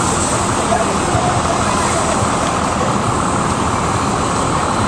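Fire engine running its pump hard to feed a deck gun, with the water jet spraying: a steady loud rush over the drone of the engine.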